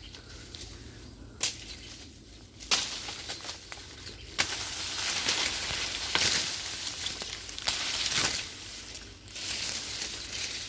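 Dry sugarcane leaves and stalks rustling and crackling as someone pushes through the thicket, with a couple of sharp snaps of stems in the first seconds, then steady rustling for several seconds.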